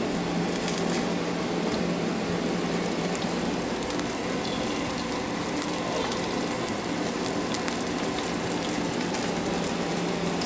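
Raw bacon strips sizzling in hot frying oil in a pan: a steady crackling hiss, with a faint steady low hum underneath.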